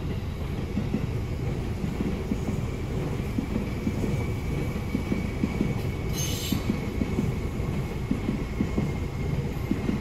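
Yellow Seibu Railway electric commuter train passing close by: a steady rumble and rattle of wheels on the rails, with a faint high whine over it. A short hiss comes about six seconds in.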